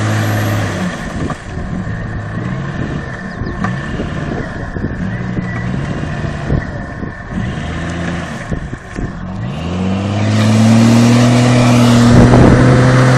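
Off-road SUV engine, a Jeep Cherokee XJ, revved in repeated short bursts as it works through deep mud and water. About ten seconds in it climbs to high revs and holds there to the end, louder, with the tyres churning mud.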